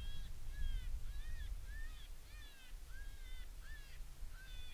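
Predator call playing a string of short, squealing animal distress cries, about two a second, some bending up and then down in pitch, with wind rumbling on the microphone.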